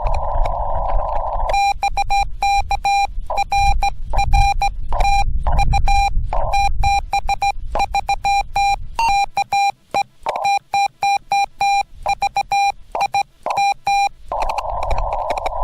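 Morse code being sent by hand on a straight key, heard as the Yaesu FT-891's single-pitch sidetone beeping in irregular dots and dashes. Before the keying and again near the end, the receiver's narrow-filtered band hiss fills in, and it drops out between the keyed tones while transmitting.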